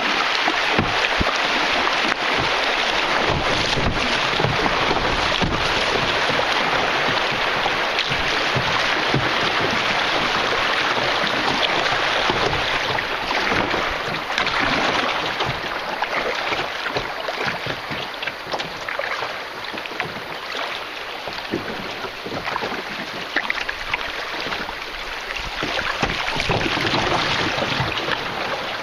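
Steady rushing of river water around a canoe, with wind buffeting the microphone in low rumbles. The rush eases off for a while in the second half, then builds again near the end.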